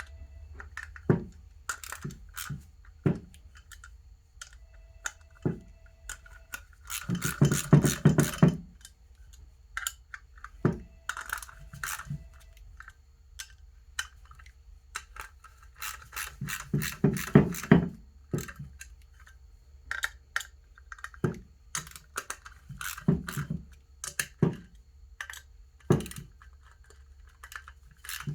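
A ratchet with a 10mm socket clicking in two quick runs, about a quarter and about three fifths of the way through, as the wheel-half bolts are snugged up evenly. Scattered single clicks and taps of the tools come in between.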